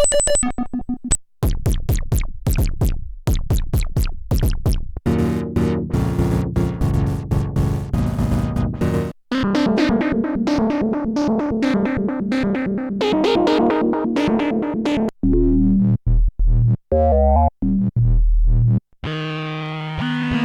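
Arturia MicroFreak hybrid synthesizer playing one preset after another, the sound changing every few seconds. First come short plucked notes, then held chords, then a busy repeating pattern, then deep bass notes, and a sustained pad near the end.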